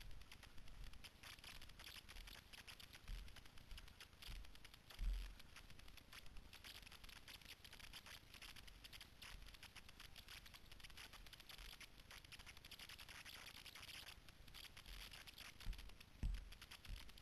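Faint, continuous crackling and rustling of someone moving through dry leaves and undergrowth on a forest floor. A few low bumps of handling or wind on the microphone come about a third of the way in and again near the end.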